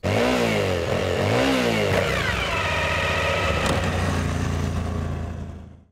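Motorcycle engine revving: two quick blips of the throttle, then a long rising rev held at a steady high pitch, fading away near the end.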